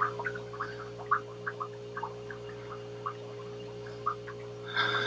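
Paintbrush lightly dabbing and brushing on a canvas, a soft irregular patter of short taps a few times a second, over a steady low hum. A brief breathy hiss near the end.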